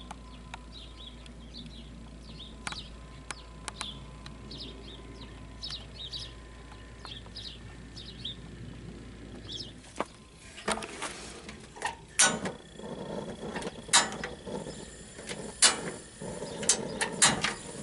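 Small birds chirping repeatedly for about the first ten seconds, then a run of sharp knocks and metal clatter as a gas barbecue grill's lid is opened and handled.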